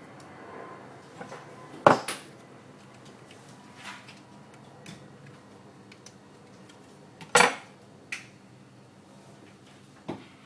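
Scattered sharp clicks and taps of small hard parts and tools being handled while a mobile phone is taken apart, about half a dozen knocks with the loudest a little past the middle.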